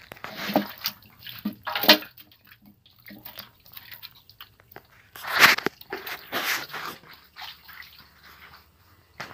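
Irregular wet splashes and sloshing of shallow muddy water in a plastic basin as a hand moves among small freshly caught fish, with the loudest splashes about halfway through.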